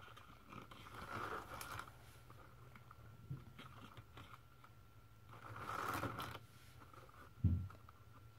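Paper pages of a spiral-bound desk calendar being turned by hand: two soft swishes of paper about five seconds apart, then a low thump near the end.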